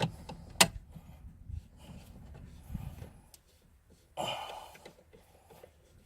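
Hand tool work on the Torx screws of a car's plastic console trim: one sharp click about half a second in and a few faint ticks, then a short breathy rustle about four seconds in.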